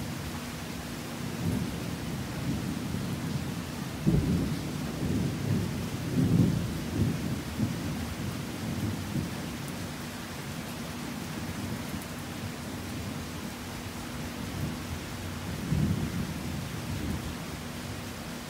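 Thunder over steady heavy rain. A sharp crack about four seconds in rolls into a long rumble that peaks a couple of seconds later, and a weaker rumble comes near the end.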